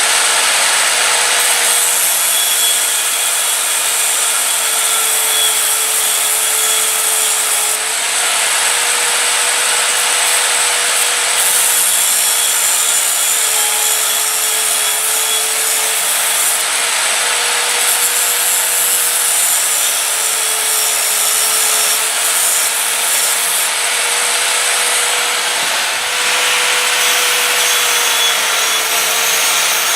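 Power tool spinning a very fine cutting disc through stainless steel to cut the fingers and thumbs of a forged figure: a steady motor whine over a hissing grind, its pitch dipping a little now and then as the disc bites.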